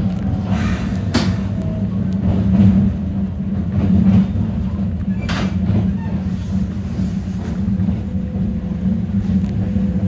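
Toyama Chiho Railway 10030-series electric train running on the rails, heard from inside the cab: a steady hum and rumble of motors and wheels, with sharp clicks and rattles, the loudest about a second in and again about five seconds in.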